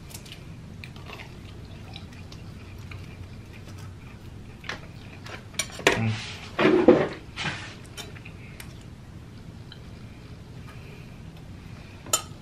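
Eating at a table: a metal fork and plastic takeout containers clicking and scraping, with a louder burst of clatter about six to seven and a half seconds in and a sharp click near the end.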